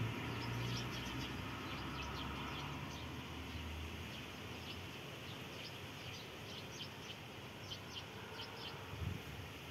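Small birds chirping in short, high, scattered chirps, over a low rumble that fades away over the first few seconds. A soft thump about nine seconds in.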